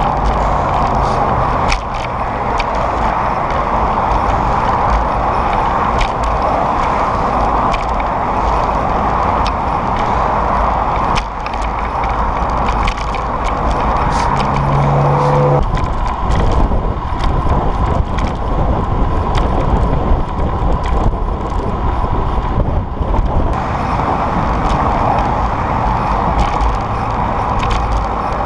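Steady rush of wind on a moving bicycle's camera microphone, mixed with freeway traffic noise from the lanes alongside. A short pitched tone sounds for about a second and a half around the middle.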